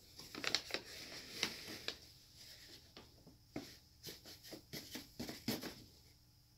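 Brown paper bag crinkling and rustling in short scratchy bursts as a foot pokes and scratches inside it, in two spells of a couple of seconds each.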